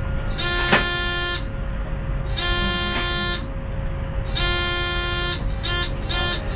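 Electronic warning beeper in the cab of an Alstom Citadis tram: three long beeps about two seconds apart, then a run of quicker short beeps. A steady low rumble from the tram runs underneath.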